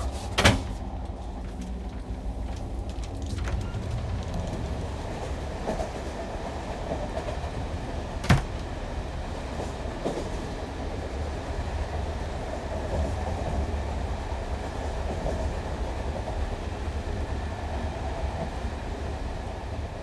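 Moving diesel train heard from inside its toilet compartment: a steady low rumble of the carriage running along the track, with two sharp knocks, one about half a second in and one about eight seconds in.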